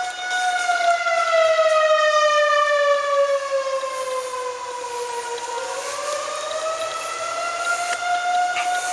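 Outdoor tornado warning siren wailing, sounding a tornado warning. Its single loud tone sinks slowly in pitch for about five seconds, then climbs back up near the end.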